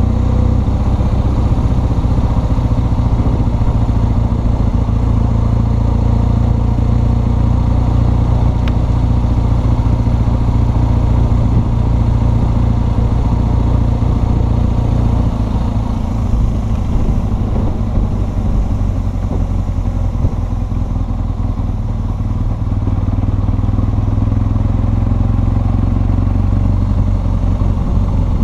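BMW R1200 GS Adventure's boxer twin engine running steadily while riding. It eases off a little about halfway through and picks up again near the end.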